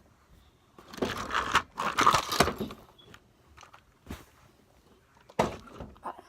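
Homemade slime being squeezed and worked by hand as lotion is mixed in. There is a stretch of squishing and crackling handling noise for about two seconds, starting about a second in, then one short sharp squish near the end.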